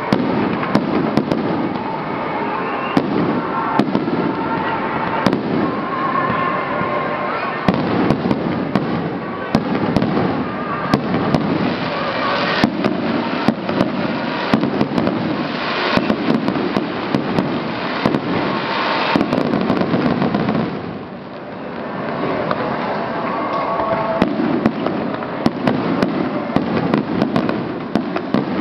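Fireworks display: shells bursting in quick succession with sharp bangs and crackling, heaviest in the middle of the barrage. The bangs ease briefly about three-quarters of the way through, then pick up again.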